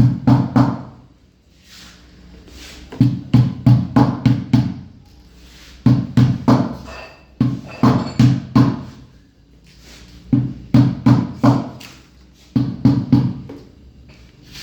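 Hammer blows driving a new bearing into a washing machine's tub. The strikes come in quick runs of four to eight, about three a second, with short pauses between the runs, and each blow rings low and hollow.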